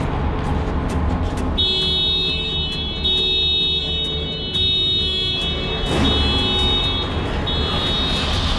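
Horror film score: a deep, steady low drone, joined about a second and a half in by high, sustained electronic tones that hold to the end.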